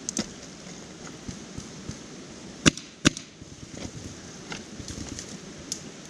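Paintball marker firing two sharp pops about a third of a second apart, the loudest sounds here. A smaller pair of pops comes right at the start, and faint clicks and knocks fall in between.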